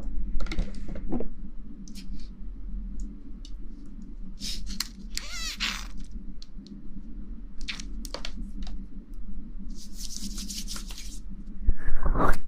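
Close-miked ASMR rustling and scratching: irregular short bursts and a longer hissy stretch about ten seconds in, over a steady low hum. Near the end comes a brief louder sound that glides in pitch.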